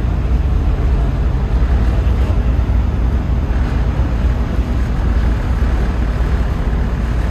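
Passenger ferry under way: a steady low engine rumble with a constant rushing noise over it.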